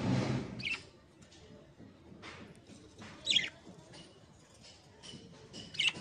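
Budgerigars giving three short, high chirps, each sweeping downward, with the loudest about halfway through. A muffled low rumble comes at the very start.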